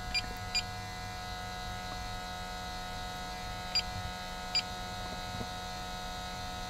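Short, high electronic beeps from a ContiPressureCheck handheld tire-pressure tool as its keys are pressed to start the data transfer. There are two close together near the start and two more about four seconds in, over a steady electrical buzz.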